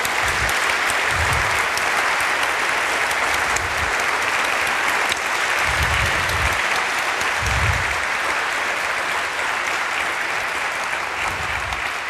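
Large audience applauding steadily, dying away near the end.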